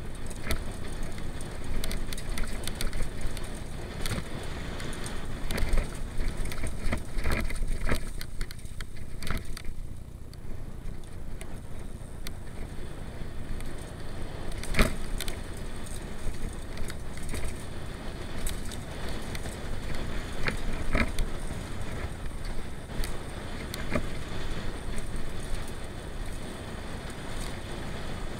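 Mountain bike ridden down a dirt singletrack: a steady rumble of tyres rolling on dirt and the bike rattling, with frequent sharp knocks over bumps, the loudest about 15 s in.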